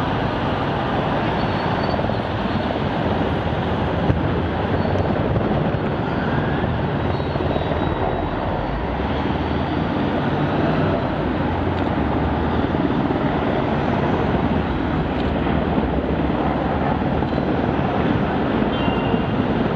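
Military transport helicopter flying over, a steady rotor and engine noise.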